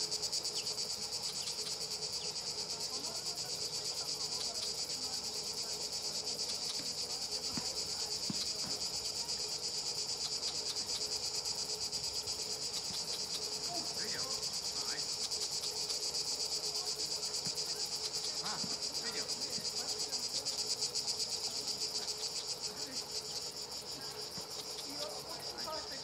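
Continuous high-pitched buzzing of an insect chorus with a fast, fine pulse, holding steady throughout. A faint steady lower hum runs beneath it.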